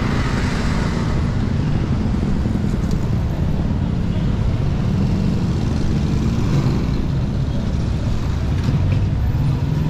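Street traffic: a steady low rumble of engines from passing motorbikes, motorcycle tricycles and a van.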